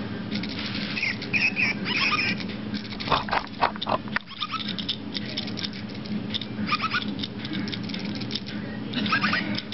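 Battery-powered Micropets toy robot pets, with short squeaky electronic chirps and rapid clicking as a toy scoots across the tile floor.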